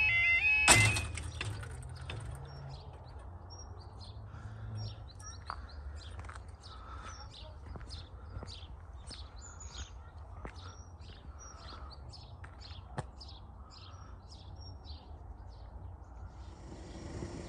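A level crossing's warbling yodel alarm cuts off about a second in with a sharp clack. Small birds then chirp in quick repeated notes. Near the end a low steady rumble starts to rise as a train approaches.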